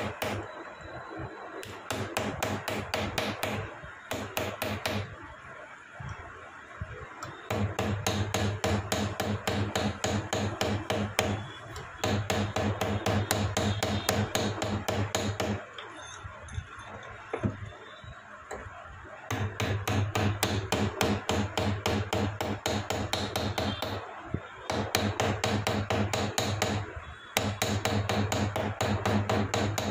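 Rapid, even hammering on silver during handmade ring-making, about five light blows a second. The blows come in runs of several seconds, broken by two short pauses.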